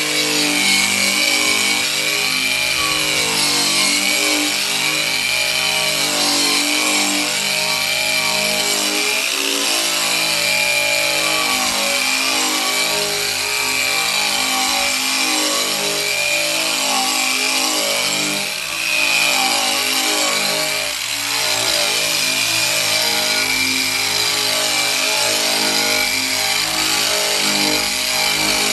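Eastwood Contour SCT, a handheld electric drum sander, running against bare sheet steel as it scuffs and smooths a butt-welded quarter panel for body work. Its high whine rises and falls steadily as the drum is pressed and swept over the metal, dipping briefly twice about two-thirds of the way through.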